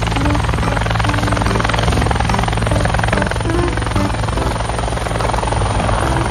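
Helicopter sound: the rotor's rapid, steady chop over the engine.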